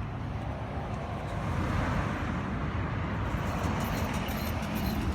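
Road traffic noise, a steady rumble that swells a little about two seconds in as a vehicle passes, with faint high ticking in the last couple of seconds.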